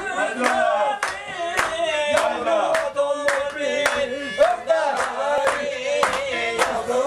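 Men clapping their hands in a steady dance rhythm, about two claps a second, under a wavering folk melody line.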